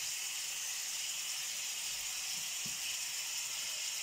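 Cauliflower and sausages frying in a pan: a steady sizzle, with a faint soft knock about two-thirds of the way through.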